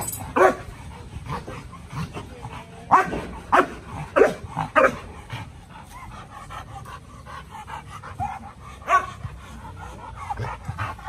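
American bulldogs barking in short single barks: a couple at the very start, a run of four about half a second apart a few seconds in, and one more near the end.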